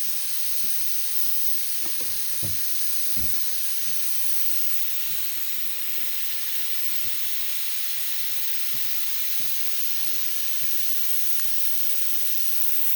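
Steady hiss of compressed air escaping from a leaking fitting on a homemade air compressor rig running off refrigerator compressors, a sign the line is not yet airtight.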